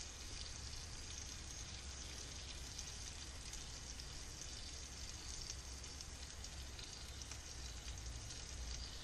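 Faint, steady sizzling of guanciale frying in a pan, over a low steady hum.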